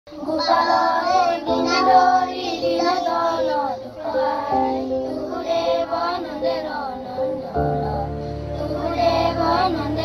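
Children singing a prayer over instrumental music with long held notes; a deep bass note joins near the end.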